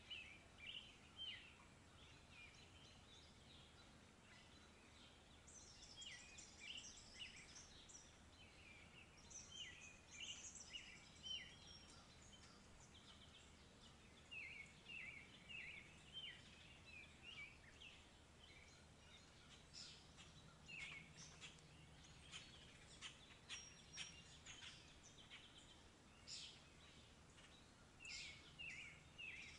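Several birds chirping faintly in short runs of quick, high notes, over a low steady background noise.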